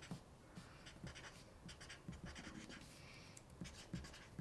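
Felt-tip marker writing capital letters on paper: a faint run of short scratchy strokes, a few each second.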